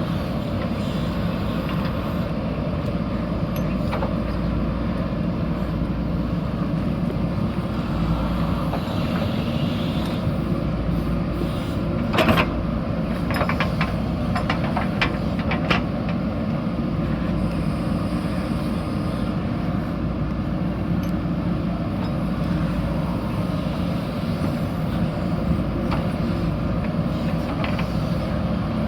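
JCB backhoe loader's diesel engine running steadily under work, with a cluster of knocks and clatter about twelve seconds in and a few more over the next few seconds.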